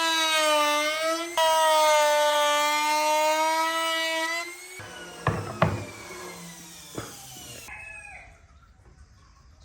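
Electric power tool motor running with a steady whine that wavers slightly under load. It is switched off about four and a half seconds in and spins down with a falling whine, and a few sharp knocks follow as the tool is handled.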